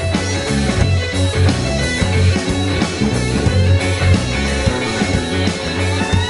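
Live rock band playing: electric guitars over a drum kit, with a steady beat.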